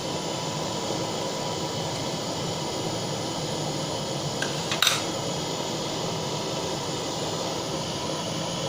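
Butane blowtorch flame burning with a steady hiss, with one short sharp click a little before five seconds in.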